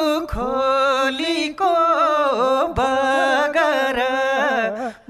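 A man singing a Nepali folk song solo, in long held notes that waver and glide in ornaments. There is a short break for breath near the end.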